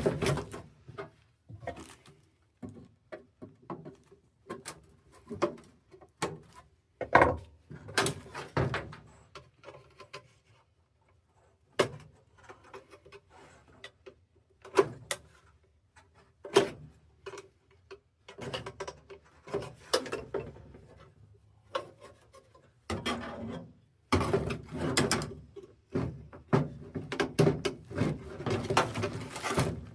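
Irregular clicks, knocks and rubbing of tools and metal parts being handled while a furnace motor is swapped out, with busier, louder stretches near the middle and toward the end.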